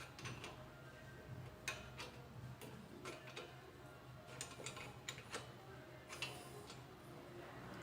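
Faint, irregular metallic clicks and ticks of two 13 mm wrenches working the nut and bolt as the steering-knuckle pinch bolt holding a GM Celta's new lower ball joint is tightened, over a low steady hum.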